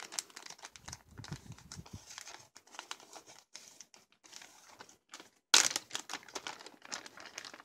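Clear plastic zip-top bag crinkling and clicking as it is handled and its zip strip pressed shut, with a louder crackle about five and a half seconds in.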